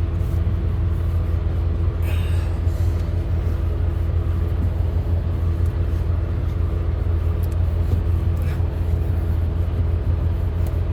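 A large engine idling steadily with a constant low rumble. A brief scuff is heard about two seconds in.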